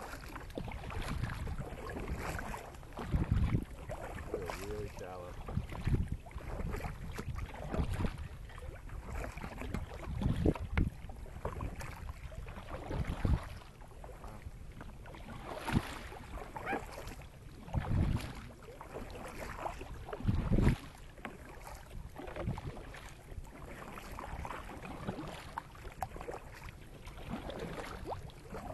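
Double-bladed kayak paddles dipping and splashing in calm sea water, a stroke about every two to three seconds, with wind buffeting the microphone.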